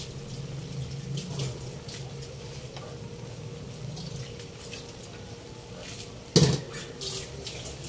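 Taro leaves and coconut milk simmering in a wok, with faint scattered bubble pops over a low steady hum. A single sharp knock comes about six and a half seconds in.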